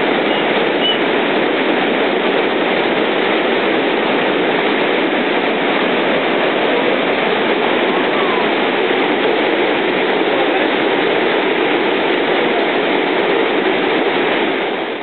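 Water rushing steadily over a river weir and down its canoe chute, a loud, even rush of white water.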